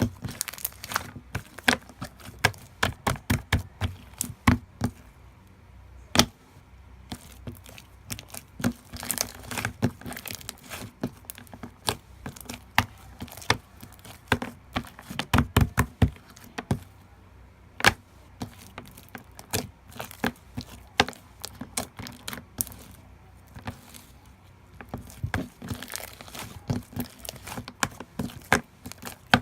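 Slime being squeezed and pressed by hand, making irregular sharp pops and clicks, sometimes in quick runs, with short pauses between.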